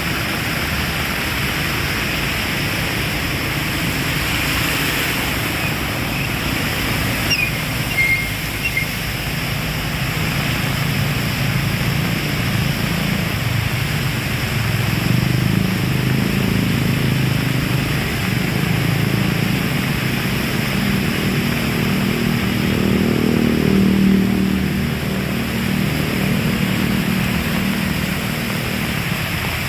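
Heavy rain pouring steadily. A low rumble swells up through the middle and fades again near the end.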